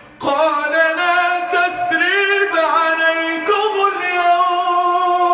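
A man reciting the Quran in a melodic, ornamented style: his voice comes in just after a short pause, winds up and down through rapid trills and glides, then holds a long steady note near the end.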